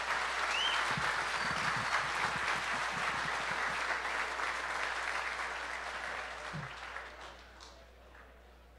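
Audience applauding, a dense patter of many hands clapping that dies away about seven to eight seconds in.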